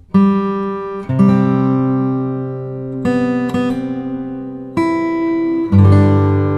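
Background music: acoustic guitar chords strummed about once every second or two, each left to ring out.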